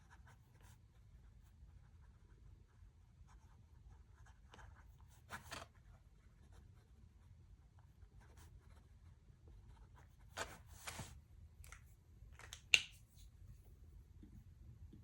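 Faint pen-on-paper writing and paper handling over a low room hum, with a few short rustles and one sharp click about three-quarters of the way in.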